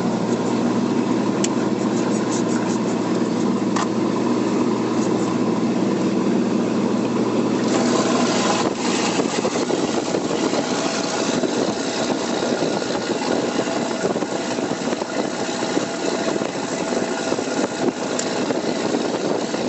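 Heavy truck driving, heard from inside the cab: a steady engine hum and road noise, with short creaks and clicks from the cab. About eight seconds in, the even hum gives way to a louder, rougher rumble.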